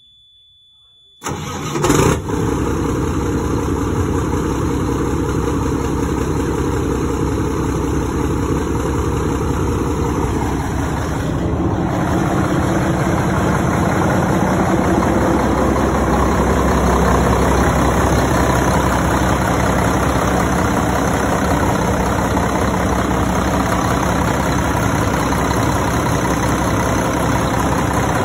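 Mack CH600 truck's diesel engine cold-starting: it fires about a second in with a brief loud burst, then settles into a steady idle.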